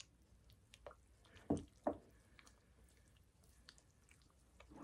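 A silicone spatula stirring milk into shredded cheese in a glass bowl, making faint soft clicks, with two louder knocks close together about a second and a half in.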